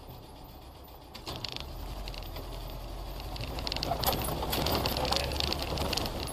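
Car running with a low engine and tyre rumble that grows from about a second in. From about four seconds in it is joined by rattling and clattering as the car runs off the road onto the rough shoulder and grass verge.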